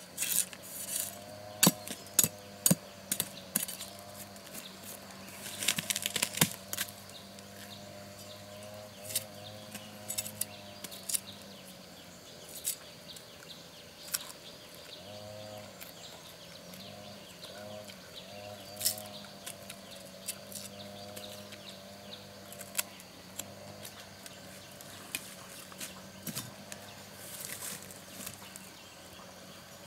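Irregular sharp knocks and clicks, several in quick succession near the start and again around six seconds in, over a steady low hum with a wavering tone.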